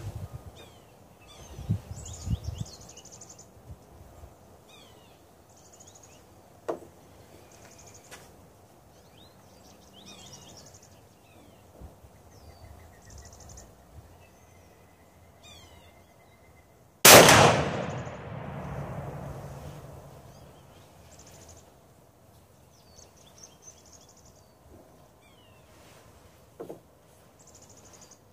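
A single shot from a .700 Nitro Express double rifle, about two-thirds of the way in, by far the loudest sound, its boom dying away over about three seconds. Birds chirp throughout, and there are a few low thumps near the start.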